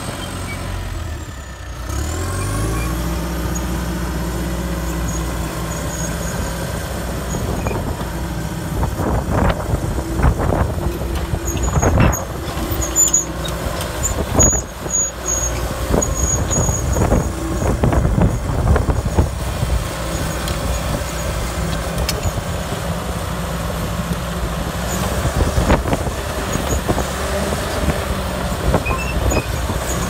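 John Deere 450J LT crawler dozer's diesel engine picking up about two seconds in and then running steadily under load, with repeated clanking and squealing from the steel tracks as the machine travels.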